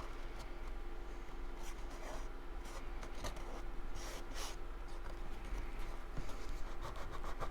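Cardstock being handled and pressed down by hand: paper rubbing and rustling, with a few short crinkles, over a faint steady hum.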